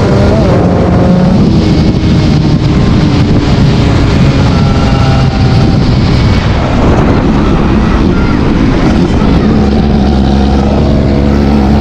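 ZX 300 R motorcycle engine running through its exhaust, its pitch shifting as the revs change, then holding a steady note for the last couple of seconds.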